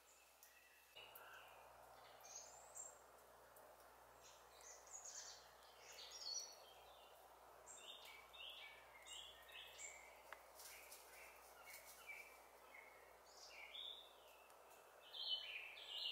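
Faint woodland birdsong: short, varied song phrases following one another, over a soft steady background hiss.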